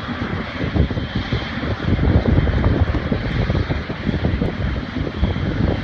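Jet engines of a Boeing 777 freighter running as it rolls along the ground after landing: a steady high whine over an uneven low rumble.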